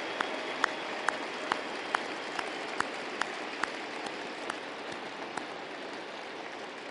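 Large crowd applauding, a dense patter of many hands, with one sharp clap about twice a second standing out. The regular claps stop a little over five seconds in while the applause slowly dies away.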